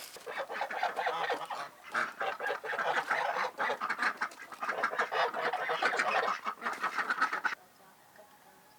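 A flock of domestic waterfowl calling noisily, with many rapid, overlapping honks and quacks; the sound cuts off suddenly near the end.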